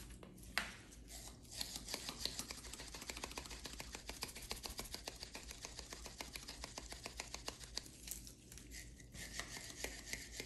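Steel lineman's pliers worked rapidly open and shut with valve grinding compound packed in the pivot, making a fast gritty grinding of several strokes a second. This is the pivot being lapped so that stiff new pliers will open and close freely. Near the end comes a short high squeal.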